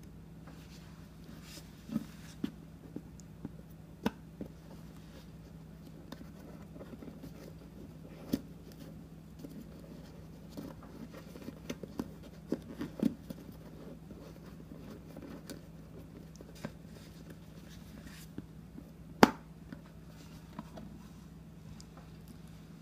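Handling noise as paracord, carabiners and a boot are worked by hand: scattered small clicks, knocks and rubbing, the sharpest knock about 19 seconds in, over a steady low hum.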